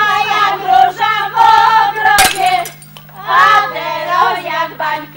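Women's voices singing a folk wedding song loudly and high, with one sharp crack about two seconds in. A steady low hum runs underneath.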